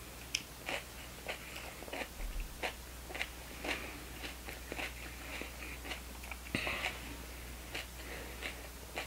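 A child chewing a mouthful of raw jalapeño pepper: soft, irregular crunching clicks.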